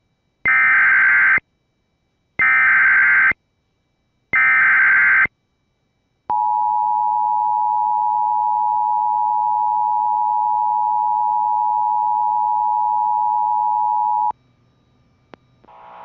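Emergency Alert System tones for a flash flood warning: three one-second bursts of SAME header data, then the steady two-tone attention signal for about eight seconds, which cuts off abruptly.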